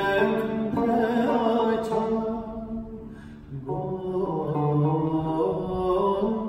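A man singing a Turkish classical song in makam Suzinak, accompanied by a tanbur, the long-necked Turkish lute. The voice sinks into a brief lull about three seconds in, then comes back.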